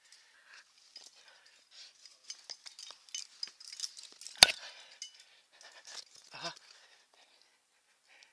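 Metal climbing gear clinking: carabiners and quickdraws knocking together on the harness during a climb, with one sharp metallic click about four and a half seconds in, the loudest sound.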